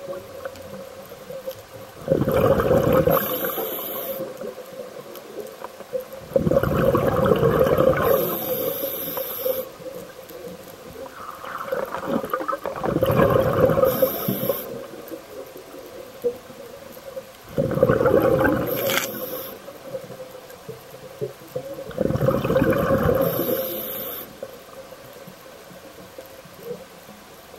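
Scuba diver breathing through a regulator under water: five breaths about five seconds apart, each a couple of seconds of hissing air and bubbling. A low steady hum runs between the breaths.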